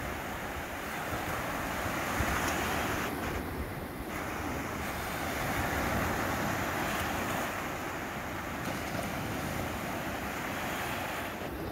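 Small Black Sea waves breaking and washing up a sandy beach, the surf swelling and easing every few seconds, with wind rumbling on the microphone.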